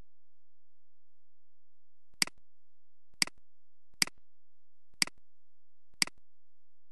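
Computer mouse clicks: five sharp single clicks at about one-second intervals, starting about two seconds in.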